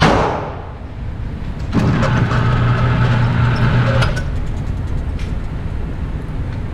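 A loud bang opens, ringing out for about a second. Then an indoor range's motorized target carrier runs for about two seconds with a steady hum, sending the paper target downrange. Sharp knocks sound here and there.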